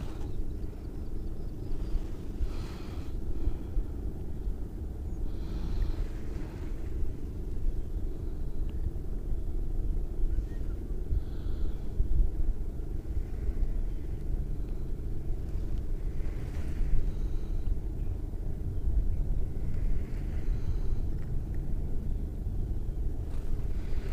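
Low, uneven rumble of wind buffeting the chest-mounted microphone, with a few faint higher rustles.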